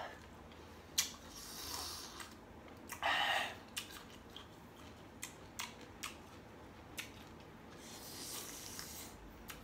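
Someone chewing crunchy, sour green ambarella, with scattered sharp crisp clicks of the flesh and a few short hissing breaths sucked in through the teeth at the sourness, the strongest about three seconds in.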